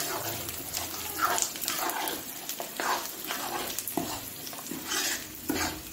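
A metal spoon stirring and scraping thick turmeric panjiri in a steel kadhai, in repeated strokes about once or twice a second. Under it a light sizzle as the edible gum (gond) fries and puffs up in the hot mustard oil.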